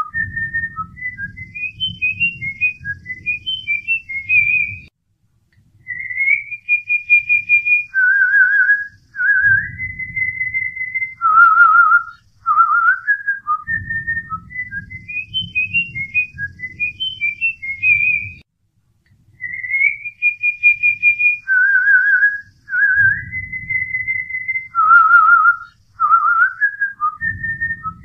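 A whistled melody of short hops between notes, long held notes and a wavering trill, looping the same phrase about every 14 seconds over a low rhythmic pulsing.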